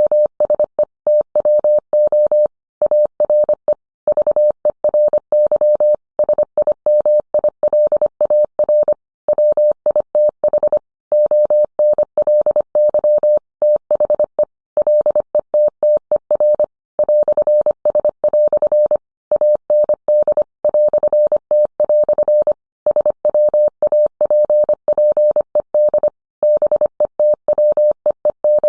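Morse code sent as a single steady mid-pitched beep, keyed on and off in short and long elements (dits and dahs) with brief gaps between characters and words.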